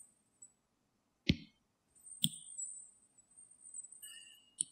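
Three sharp clicks, like a stylus tapping on a tablet: two about a second apart, then one near the end, with a faint high-pitched whine in between.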